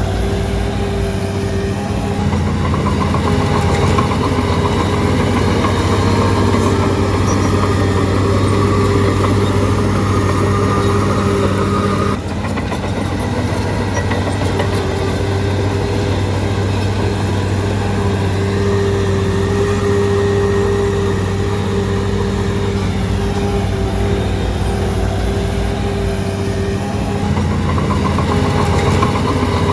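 Shantui DH17C3 bulldozer's diesel engine running steadily under load. The sound changes abruptly about twelve seconds in.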